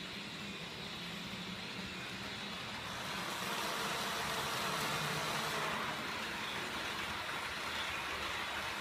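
H0 model train running on the layout out of sight, a steady rumble of its motor and wheels on the track, growing louder about three seconds in and easing slightly near six seconds.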